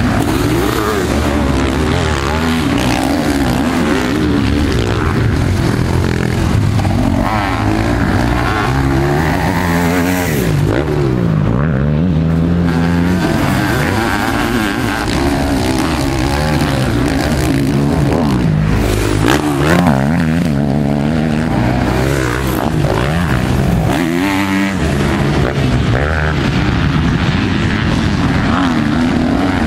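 Sidecarcross outfit engines revving hard on the track, the pitch rising and falling again and again as the throttle opens and closes.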